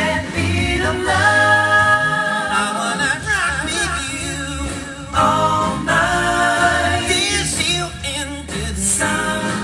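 Singing with musical accompaniment: a voice holding long, wavering notes and sliding between phrases over a steady bass line, at a sound check.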